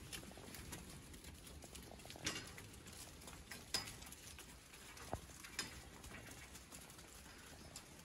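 A flock of sheep milling about on concrete, with faint hoof patter and a few sharp clicks and knocks, the loudest a little under four seconds in.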